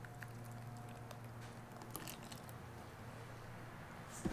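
Faint clicks and taps from a cream carton and plastic measuring cup being handled while heavy cream is poured, over a low steady hum; a sharper click near the end.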